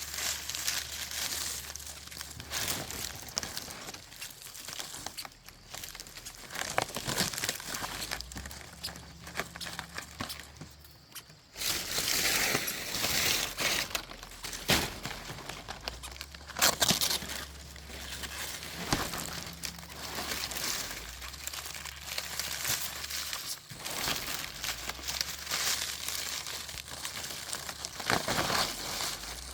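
Rustling, crinkling handling noise with many scattered clicks and knocks.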